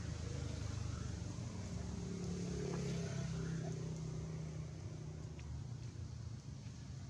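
A motor vehicle engine running steadily as a low hum, its pitch holding, strongest in the middle, with a few faint clicks.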